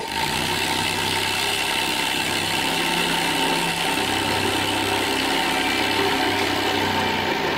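Corded jigsaw running steadily as its blade cuts through a sheet of marine plywood.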